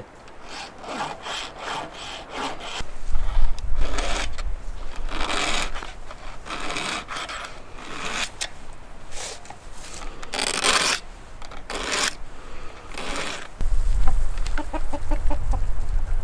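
Chainsaw chain being sharpened with a hand file: a series of rasping file strokes across the cutters, quick at first and then about one a second, touching up a chain dulled in frozen mud. A hen clucks briefly near the end.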